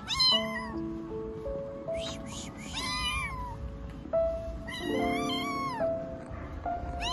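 A young kitten meowing: high, thin calls that rise and fall, three times about two seconds apart, with a fourth starting at the very end. Background music with slow held notes plays underneath.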